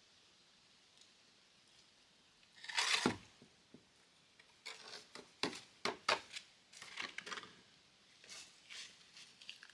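Masonry hand work: one loud scrape about three seconds in, then a run of shorter scrapes and clicks.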